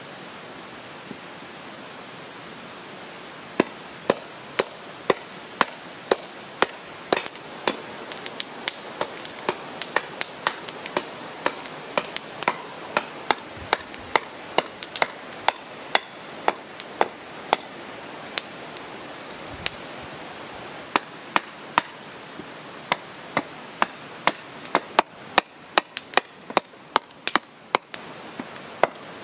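Hatchet chopping into a black walnut block on a wooden stump, hewing away waste wood to rough out a kuksa cup blank. Sharp strikes come roughly two a second, starting a few seconds in, with a short pause in the middle, over a steady background hiss.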